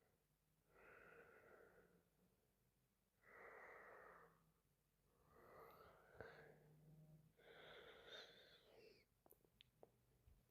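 A sleeping woman breathing with soft snoring: four noisy breaths, about two seconds apart, with a few faint clicks near the end.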